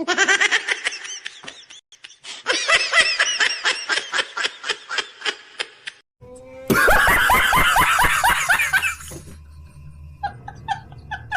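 A string of meme sound-effect laughs played back to back: three different laughing clips in turn, each a fast run of 'ha-ha' pulses that trails off, followed by quieter short sounds near the end.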